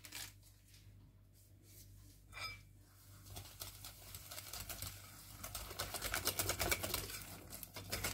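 Wire whisk beating a thick sour cream and semolina batter in a glass bowl: a rapid, even run of wet scraping clicks that starts about three seconds in and grows louder. A single short tap comes a little before it.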